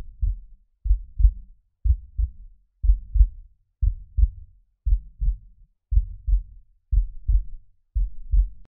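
Heartbeat sound effect: deep lub-dub double thumps, steady at about one beat a second.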